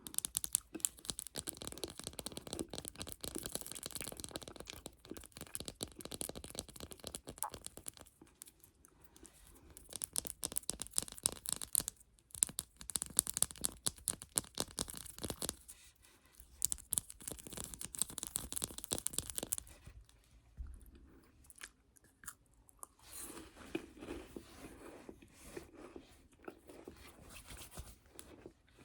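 Close-miked crunching and chewing of chocolate. Irregular crisp crackles come in bursts, with softer, fuller chewing sounds near the end.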